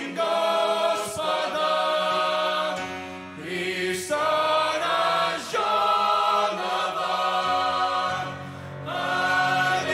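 Mixed choir of men's and women's voices singing a Russian Christmas hymn in held chords. The phrases break off briefly about three seconds in and again near the end.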